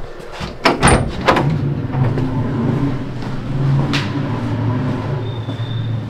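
An interior door being opened, its handle and latch clicking sharply several times about a second in, with another click a few seconds later. A steady low hum runs underneath.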